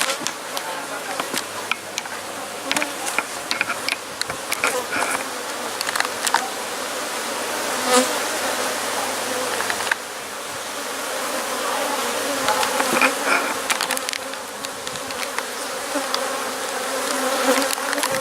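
A swarm of disturbed honeybees from an opened hive buzzing as a steady, many-toned drone, with scattered clicks and knocks from handling.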